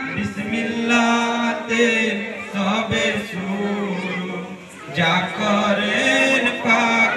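Men chanting a Bengali Muharram marsiya (elegy) together, the melody moving over a held low note, with a brief lull about four and a half seconds in.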